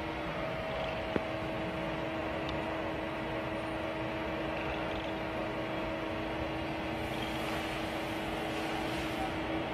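Steady machine hum of a hydraulic hot stamping machine running idle, with a single sharp click about a second in.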